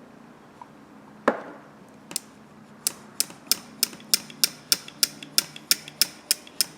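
Steel gas pliers worked open and shut, the jaws clicking together about three times a second after one louder single click.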